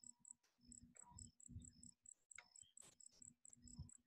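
Near silence: faint room tone with a run of evenly spaced high-pitched chirps, about four a second, and a few low muffled rumbles.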